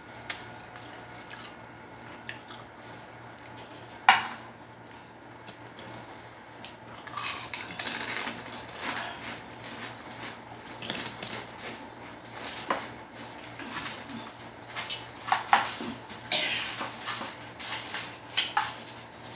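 Eating by hand from a foil tray: the aluminium foil crinkles and rustles as chicken and rice are picked out. A few sharp metal clinks come from the spoon in the tray, with small mouth and finger-licking clicks in between.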